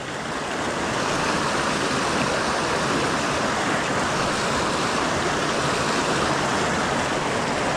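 Creek water rushing steadily over rocks, a constant even rush that swells slightly in the first second.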